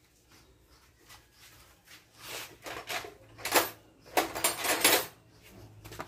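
Hand tools and metal parts being handled on a workbench: a run of scraping and clattering sounds, loudest from about three and a half to five seconds in.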